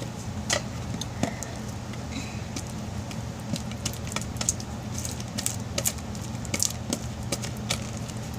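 A spatula stirring slime in a bowl: irregular clicks, taps and scrapes against the bowl, over a steady low hum.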